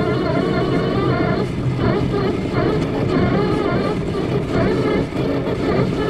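Motors running steadily, their pitch wavering up and down over a low rumble.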